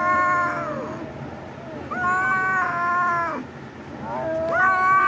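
Cat yowling in long, drawn-out cries during a rough play-fight between a kitten and a larger young cat: one cry trailing off about a second in, another from about two seconds in, and a third starting near the end.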